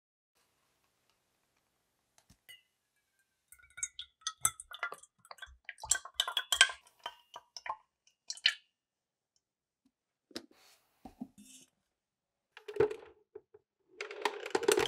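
Metal clinks and knocks from a stainless steel mixing bowl and utensils being handled, many small strikes in quick succession, then a louder, denser clatter near the end.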